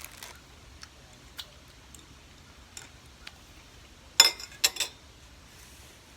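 Small scattered clicks and taps from eating and handling picnic food, with a louder run of sharp clicks and crackles about four seconds in.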